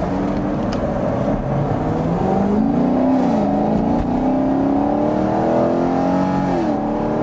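V8 car engine and exhaust heard from inside the cabin, accelerating hard from a stop. The engine note climbs, drops at a gear change about three seconds in, then climbs again and drops at a second shift near the end. The exhaust has just been repaired with a new mid-pipe after several exhaust leaks.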